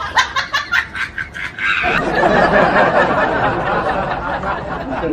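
Laughter: a quick run of short, rhythmic laugh pulses that thickens about two seconds in into a fuller, continuous laughing.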